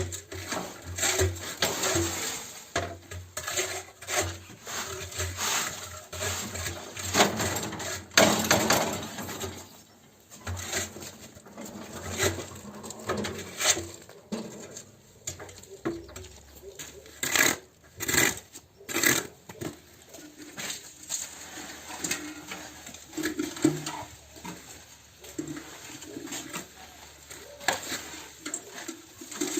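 Cinder-block making machine being test-run: irregular metallic clattering and knocks over a low running hum.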